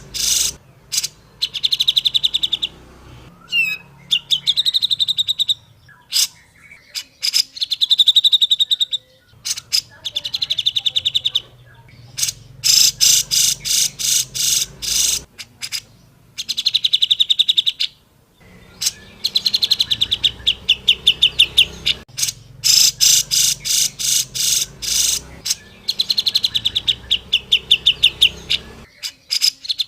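Grey-cheeked bulbul (cucak jenggot) singing, repeating phrases of rapid chattering notes, each a second or three long, with short pauses between them.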